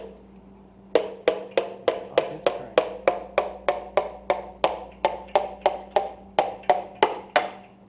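A steady run of light taps, about three a second and some twenty in all, each with a short ringing note: a piston being tapped down its cylinder bore in a Gen 3 LS 5.3 V8 block until the rod seats on the crankshaft journal.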